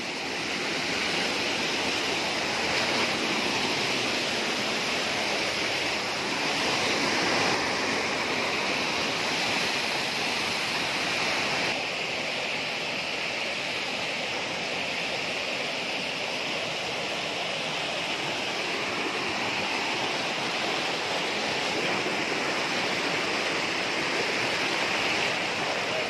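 Fast, muddy stream rushing and tumbling over rocks down a small waterfall, a steady sound of running water, slightly quieter from about halfway through.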